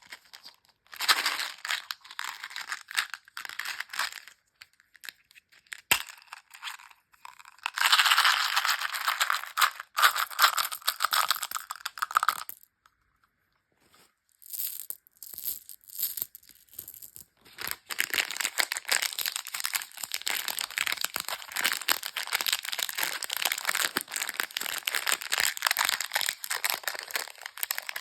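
Candy wrappers crinkling and tearing in close-up as lollipops and small chocolates are unwrapped, in irregular crackly bursts with a short pause about halfway through.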